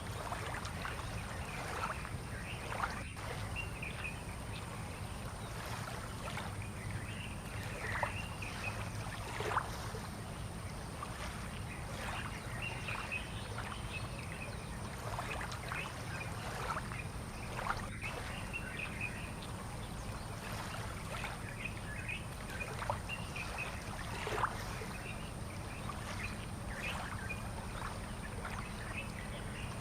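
Harbour ambience: water lapping and splashing against moored boats in irregular small slaps and ticks over a steady low hum, with short bird chirps now and then.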